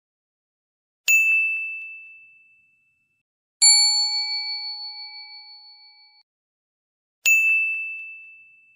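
Three ding sound effects from an animated subscribe, like and share end card: a short high ding about a second in, a longer, lower chime of several tones with a slight wobble about three and a half seconds in, and another short high ding near the end.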